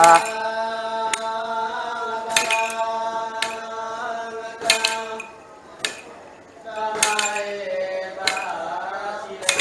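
Iban timang chant: a man's voice chanting in long, drawn-out held notes, in two phrases with a short pause between them. About once a second a staff is struck down on the tiled floor with a sharp metallic jingle.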